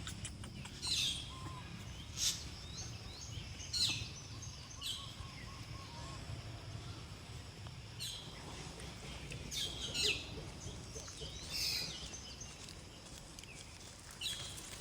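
Short, high chirps that fall in pitch, about nine of them at irregular intervals, over a steady low background rumble.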